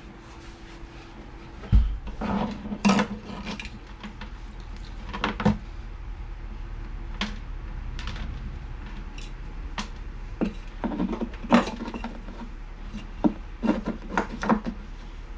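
Irregular knocks, clicks and clatter, as of objects being handled, over a steady low hum.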